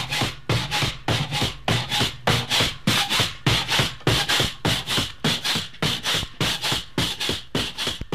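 Pogo stick bouncing: a rhythmic, scratchy rasp of the spring with a soft thump, repeating about four times a second.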